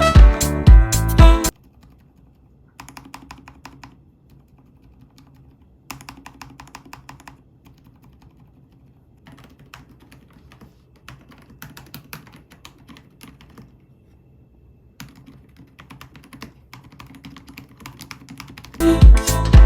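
Typing on a MonstarGear Ninja 108 PRO mechanical keyboard with Fruits Peach silent linear switches: quiet, muted keystrokes come in several bursts of one to a few seconds, with short pauses between them. Background music plays for about the first second and a half and comes back near the end.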